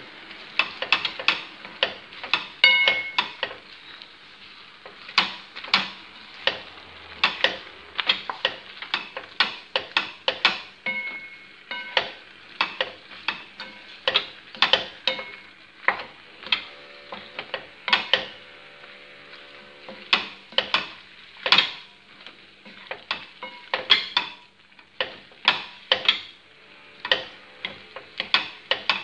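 A utensil knocking and scraping against a stone-coated frying pan as penne is stirred in its sauce, with a low sizzle of the hot pan underneath. The knocks are sharp and irregular, about one or two a second.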